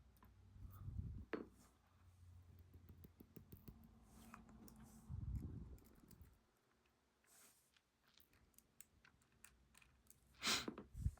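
Faint, scattered clicks of steel tweezers and tiny lock pins and springs being handled as a pin tumbler lock is taken apart, with a short louder burst of noise near the end.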